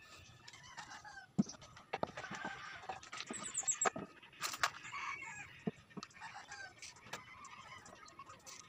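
Chickens clucking in the background, with a few sharp knocks as plywood panels are set on the box and handled.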